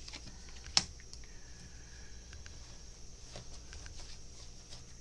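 Tarot cards being handled and drawn from a deck: faint scattered ticks and rustles, with one sharp snap a little under a second in.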